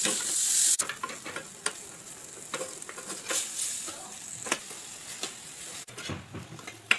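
Spatula scraping and tossing masala-coated vegetable pieces in a hot non-stick frying pan, with sizzling. The sizzle is loudest in the first second. After that the sound drops to lighter scrapes and knocks, with abrupt breaks about a second in and near the end.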